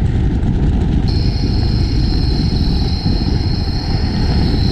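Off-road vehicle driving, a steady low engine and road rumble, with a thin high steady whine joining about a second in.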